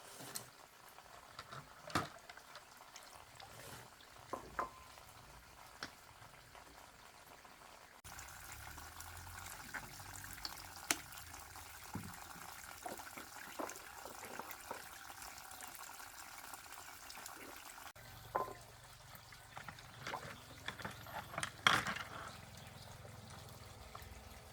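Water trickling and pouring, with scattered sharp clicks and knocks of things being handled; the loudest knock comes near the end. The background changes abruptly twice.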